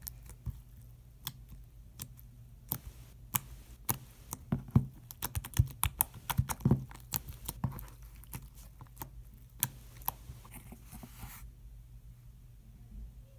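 Fluffy slime being poked and squished with fingertips, giving rapid irregular sticky clicks and small pops, thickest in the middle, over a faint steady low hum.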